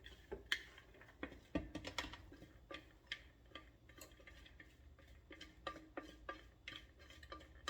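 A kitchen utensil clicking and tapping against a bowl while a saltfish mixture is stirred, in light, irregular knocks several a second.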